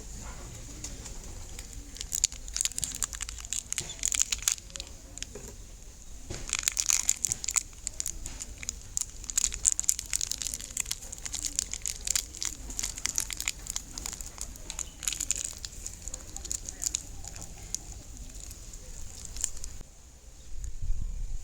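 Crinkling, crackling handling noise in irregular bursts, densest through the middle, over a faint steady high whine.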